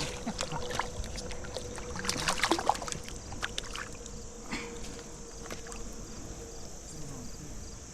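Shallow creek water splashing and sloshing in short irregular bursts, busiest in the first few seconds, over a steady high chirring of insects.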